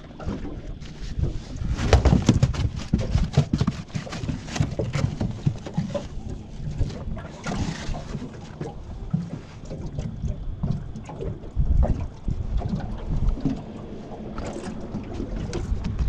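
Wind buffeting the microphone and water slapping around a small boat, with scattered irregular knocks and thumps on the deck.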